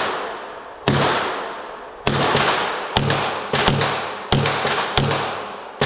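9mm pistol firing at an indoor range: about half a dozen loud shots, most about a second apart and a couple in quicker pairs, each trailing a long echo. Fainter shots from other lanes fall in between.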